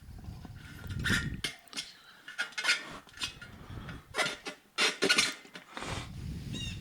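Metal tire irons clanking and scraping against a motorcycle wheel rim in irregular knocks while a new tire is levered on by hand.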